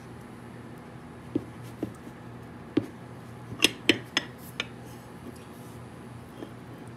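Aluminium soft-plastic bait mold being opened by hand, its metal plates knocking and clinking together in a series of short, sharp clicks, the loudest few about halfway through.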